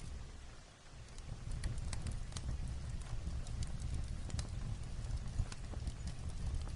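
Light rain on a roof mixed with a fireplace's crackling: irregular sharp pops over a steady low rumble, which dips briefly near the start.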